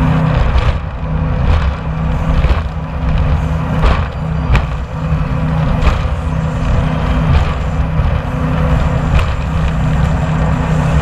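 Jet boat running at speed: a steady engine drone under a constant rush of wind and spray, with scattered sharp knocks.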